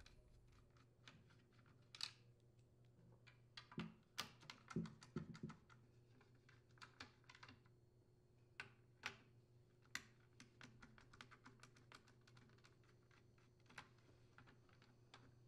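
Faint, scattered small clicks and ticks of a T25 Torx screwdriver working screws out of a Craftsman chainsaw's plastic rear handle, with a busier run of clicks about four to five and a half seconds in.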